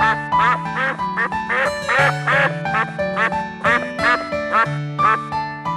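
Ducks quacking in a quick run of short calls, two to three a second, over background music with steady held notes and a simple bass line.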